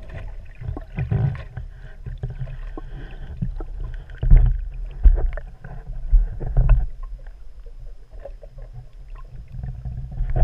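Muffled underwater sound through a waterproof camera housing: deep rumbling water movement with irregular thumps and knocks, loudest about four to seven seconds in.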